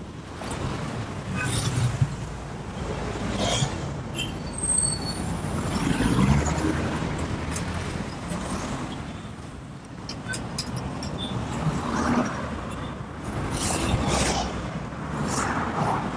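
Road traffic going by, with several vehicles swelling past and fading away.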